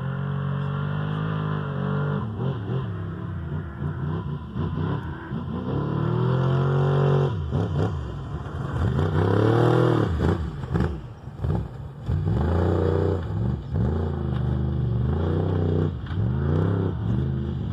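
Off-road desert race vehicles running hard, engines revving, their pitch climbing and dropping again and again as they accelerate and shift. Loudest about halfway through.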